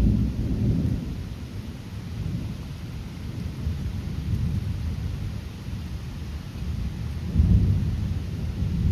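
Thunder rumbling and rolling through a thunderstorm. It starts with a sharp loud crack-like onset, stays low and rumbling, and swells again near the end, over the steady hiss of rain.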